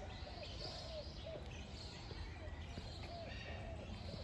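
Birds calling: short, repeated arched calls, one or two a second, mixed with higher chirps over a faint steady low hum.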